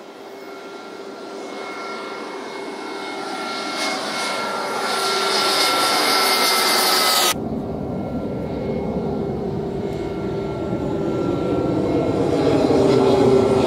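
An MC-21-300 airliner's twin Pratt & Whitney PW1400G turbofans flying low overhead: a steady engine whine over rushing jet noise that grows louder for about seven seconds. The sound then cuts off suddenly into another close pass, which builds again and is loudest near the end.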